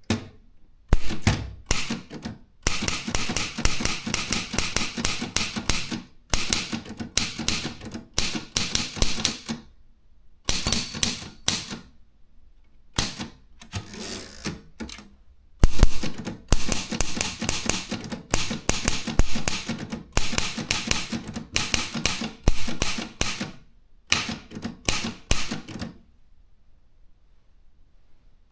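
Consul 232 manual typewriter being typed on: fast runs of key strikes in bursts with short pauses between them, then falling quiet for the last couple of seconds.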